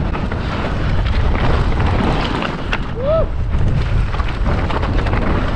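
Wind noise on the microphone and mountain bike tyres rolling over a dirt trail during a descent, with scattered clicks and rattles from the bike. A short rising-and-falling whoop comes about three seconds in.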